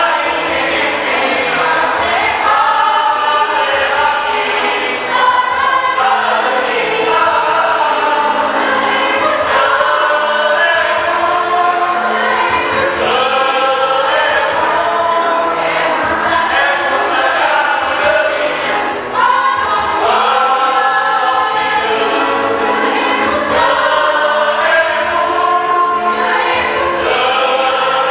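A choir singing in several voice parts, with short breaks between phrases about five seconds in and again near nineteen seconds.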